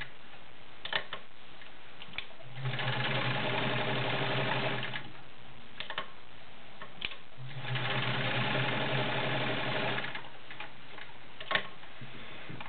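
Kenmore 1750 sewing machine running in two spells of about two and a half seconds each, stitching through six layers of denim, with a few clicks in the pauses between.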